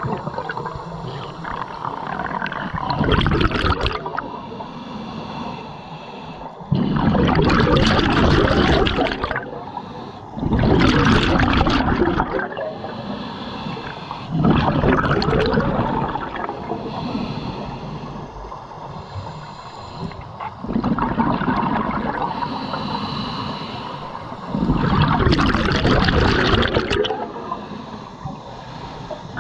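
Scuba diver breathing through a regulator underwater: quieter hissing inhalations alternate with loud gushes of exhaled bubbles every few seconds.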